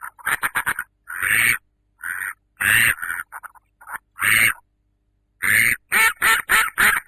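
Duckling peeping: a quick string of short peeps, then several longer calls about half a second to a second apart, a pause of about a second, and a fast run of peeps near the end.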